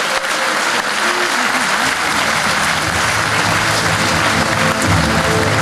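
Audience applauding steadily, with music coming in underneath about halfway through and growing louder near the end.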